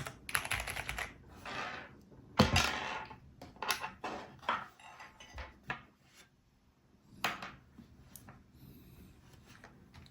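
Irregular plastic clicks and scraping from a hot-swap mechanical keyboard being worked on by hand, as switches and keycaps are pulled out and pressed in.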